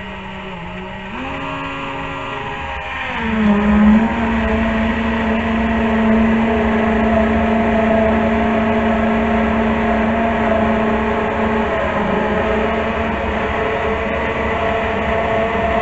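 Stick blender running in a pot of thick curry base, puréeing it smooth: a steady motor hum that shifts in pitch during the first few seconds, then holds steady and louder.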